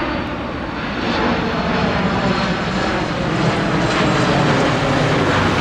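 Aircraft engine noise of a plane flying overhead, loud and steady, growing louder about a second in.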